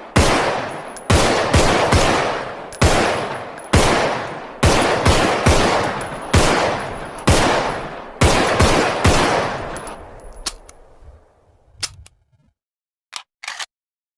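SIG Sauer pistol firing about fifteen shots, singly and in quick doubles and triples, each with a long echoing tail. The firing stops about ten seconds in, and a few short sharp clicks follow near the end.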